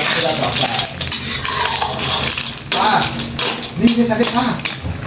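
Metal ladle scraping and clinking against a wok while stirring sea snails (siput sedut) in a thick soy-sauce gravy, a run of short irregular clicks and scrapes.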